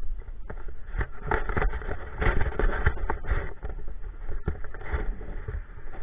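Handling noise on a body-worn camera: irregular rustling, scraping and knocks over a steady low rumble as the wearer moves about.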